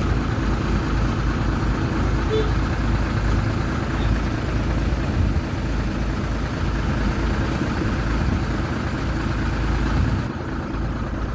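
Heavy diesel engine of earthmoving machinery running steadily, easing slightly near the end.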